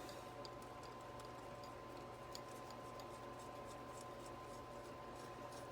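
Faint, scattered light clicks and ticks of small metal parts and screws being handled while fitting them on a transmission valve body, over a steady electrical hum.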